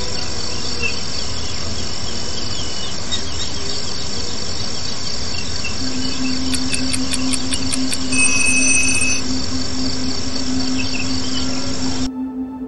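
Steady chirring of crickets, a nature-ambience background. About six seconds in a low steady hum joins, followed by a quick run of about eight ticks and a brief high beep. The insect sound cuts off suddenly near the end.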